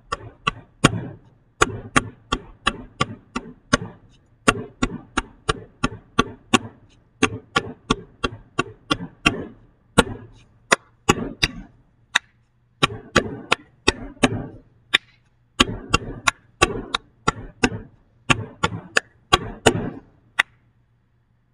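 Hands patting and tapping a wooden desk with sharp claps in between, in a fast repeating hand-rhythm pattern that breaks off briefly every few seconds.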